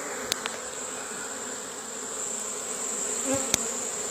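Bee colony buzzing steadily around a Kenyan top bar beehive, with a few sharp clicks.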